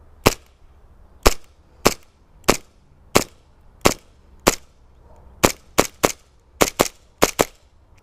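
Cybergun Colt 1911 green gas airsoft pistol firing about fourteen sharp shots, one a second or less apart at first, then faster, with several quick doubles near the end.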